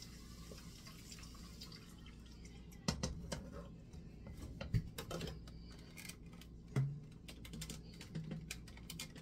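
Wooden spoon tapping and scraping against a metal mesh sieve and the rim of a pot, pressing blended vegetable pulp to strain out the juice, with juice dripping through the sieve. Quiet at first, then irregular light clicks and taps with a few louder knocks starting about three seconds in.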